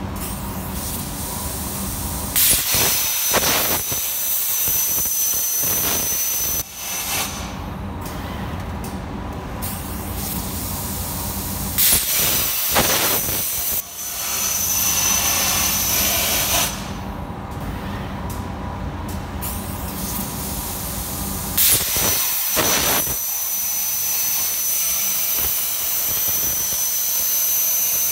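CNC plasma cutter firing three times: each time the arc starts suddenly and loudly, then runs as a strong hiss with a thin high whistle for several seconds while it cuts. A steady low hum runs underneath throughout.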